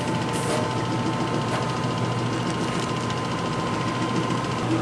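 Steady motor hum from chocolate-making machinery, with a thin high whine over it that stops near the end.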